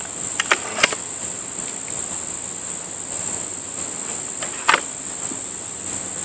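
Beeman RS2 break-barrel air rifle being cocked and reloaded: a few sharp clicks about half a second in, then a louder snap near the end as the barrel is closed and locks. Steady high-pitched insect chirring behind it.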